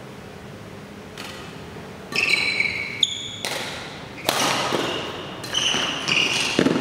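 Badminton rally: rackets striking the shuttlecock in a string of sharp hits about once a second, starting about two seconds in, with sneakers squeaking on the court floor between them.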